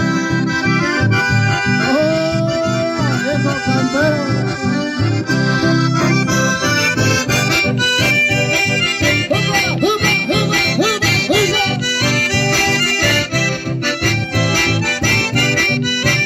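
Live dance music played on button accordions over a strummed acoustic guitar, with a steady beat.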